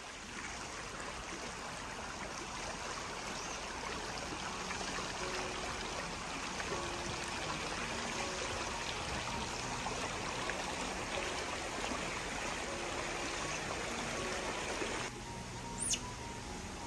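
Steady rushing of flowing water, an even noise like a stream, which drops away abruptly near the end.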